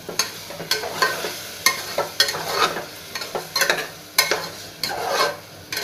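A metal spoon stirring a wet vegetable-and-milk masala in an aluminium pressure cooker, scraping and clinking against the pot about twice a second.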